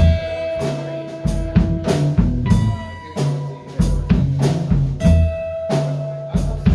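Band playing an instrumental passage: drum kit keeping a steady beat under a bass line, with long held lead notes on top.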